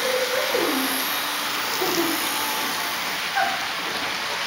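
HO-scale model freight train rolling past on the track: a steady, even hiss of wheels and motors, with faint voices in the background.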